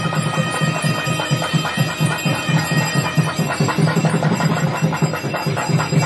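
Traditional temple percussion music with a fast, steady drum beat.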